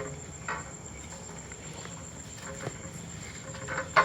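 Crickets trilling, a steady high-pitched chirr, with a few soft clicks and a sharp knock near the end.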